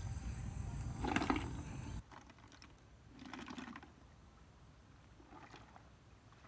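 Water sloshing as a plastic bucket is dipped and swirled in shallow pond water: three short swishes about two seconds apart, the first the loudest.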